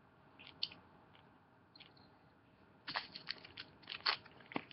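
A few faint clicks, then about three seconds in a dense run of sharp crinkling crackles from a plastic candy bag being handled.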